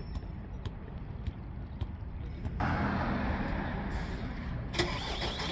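A road vehicle's engine running close by, becoming louder about two and a half seconds in, with a short hiss near the end.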